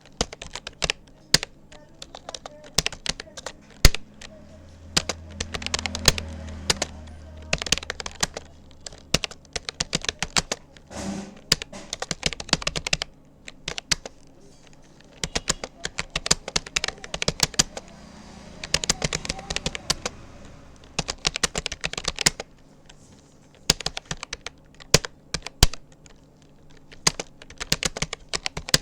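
Typing on a Rapoo computer keyboard: quick runs of key clicks with short pauses between them.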